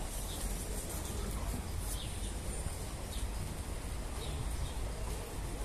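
Outdoor background noise: a steady low rumble with a few faint, short, high chirps scattered through it.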